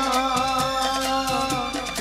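Bollywood-style film music in an instrumental passage: a sustained, wavering melody over a steady beat of light percussion.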